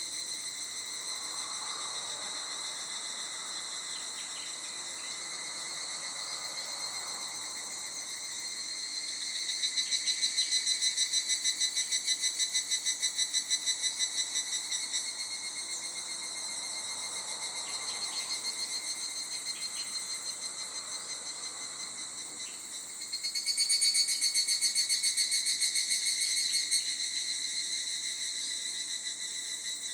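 A chorus of calling insects makes a continuous high, buzzing drone. A louder, fast-pulsing call rises over it about ten seconds in for roughly five seconds, and again for a few seconds from about twenty-three seconds in.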